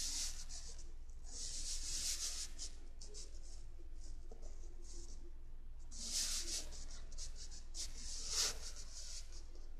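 Soft rubbing swishes of a hand moving on a handheld device, in a few separate strokes each under about a second long, over a low steady hum.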